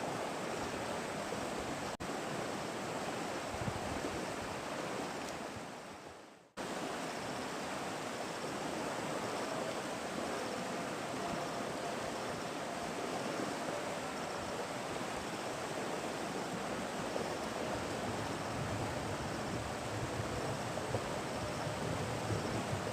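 River water rushing steadily, a constant noisy hiss. It fades away and cuts back in about six and a half seconds in.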